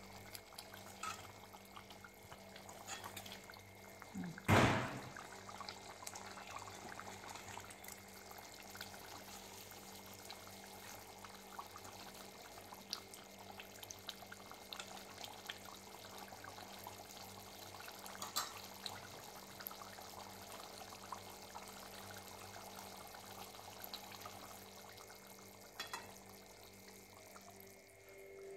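Thick prawn masala curry bubbling and simmering in an aluminium kadai over a gas burner while a spatula stirs it, with one loud knock about four and a half seconds in. The bubbling fades near the end.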